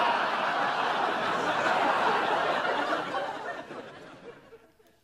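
Studio audience laughing at a punchline, loud at first and dying away over the last couple of seconds.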